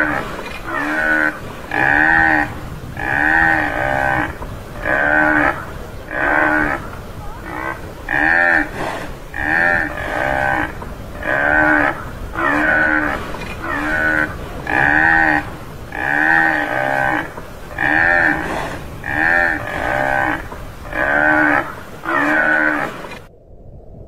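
Tamaraw (Mindoro dwarf buffalo) calling: short moo-like calls, each rising and falling in pitch, repeated evenly about once a second. The calls stop briefly near the end.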